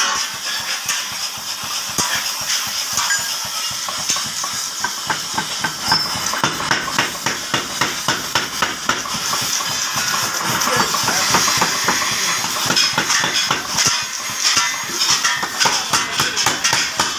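A 50 kg mechanical power hammer forging a red-hot steel trowel blank: a fast run of metal blows over a steady hiss, growing stronger about five seconds in.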